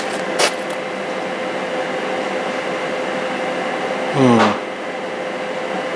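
HP large-format inkjet plotter running its start-up initialisation with its covers off: a steady fan whoosh with a hum, two clicks near the start, and a short, loud whir that glides down in pitch about four seconds in.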